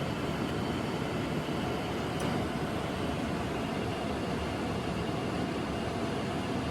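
Steady rush of airflow and engine noise on the flight deck of a Boeing 787-9 climbing out after takeoff.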